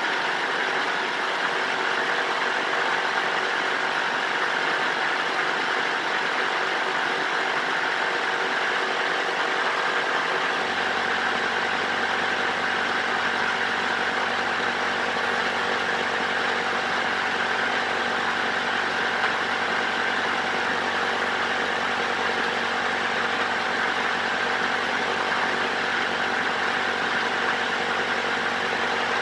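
A motor running steadily: a continuous hum with several held tones over an even hiss. A deeper hum joins about ten seconds in and then holds.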